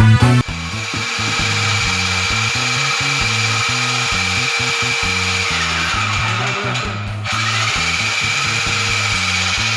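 Electric power drill running steadily with a thin whine; it is released briefly about seven seconds in and spins back up. Background music plays underneath.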